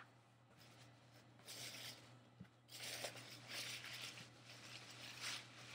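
Faint rustling of tissue paper being handled and pushed aside, in several short spells.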